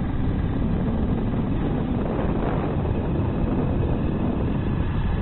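Steady rumble of a moving vehicle with wind buffeting the microphone, heaviest at low pitch.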